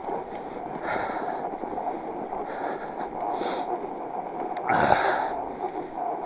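Northrock XC00 fat bike's wide tires rolling over loose snow in a steady rush, with the rider breathing hard in puffs every second or two. There is a louder rush about five seconds in.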